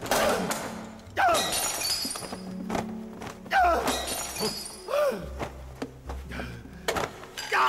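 A series of about five heavy crashes, each a sudden thunk followed by a ringing, shattering clatter, as of hard objects being thrown down or smashed.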